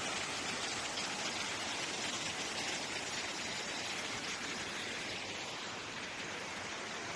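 Steady rushing hiss of water, even throughout, with nothing standing out above it.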